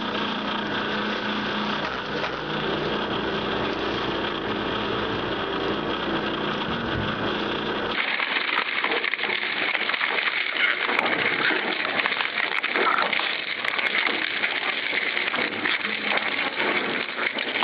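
A twin-shaft shredder grinds metal turnings under a steady motor hum. About eight seconds in, a different shredder takes over, grinding and clattering through metal scrap with scattered sharp clicks.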